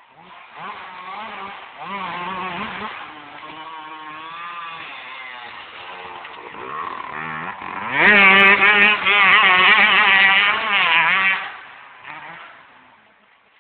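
Yamaha YZ125 two-stroke motocross bike accelerating, its revs climbing and dropping with each gear change. It is loudest for a few seconds as it passes close, about eight seconds in, then fades into the distance.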